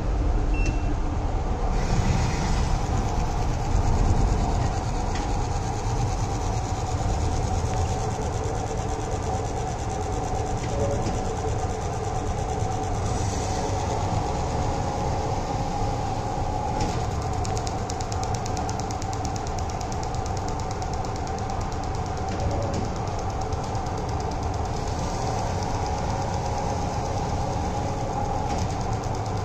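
Single-shaft automatic slicer machine running, its shaft spinning a log of double-sided tissue tape while a blade cuts it into rolls: a steady mechanical hum with a held whine over a low rumble, and a few brief clicks.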